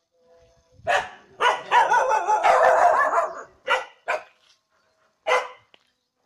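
Dog barking: one bark about a second in, a quick run of barks for nearly two seconds, then three single barks.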